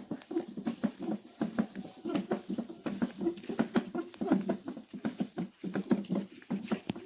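A quick, uneven patter of steps on dry ground, several short knocks a second with no pause.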